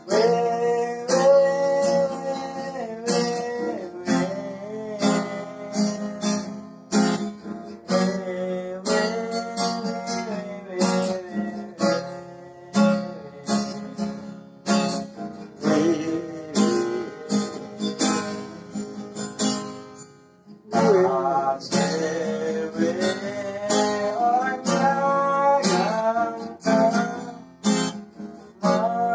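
A man singing to his own strummed acoustic guitar. The guitar and voice break off briefly about two-thirds of the way through, then start again.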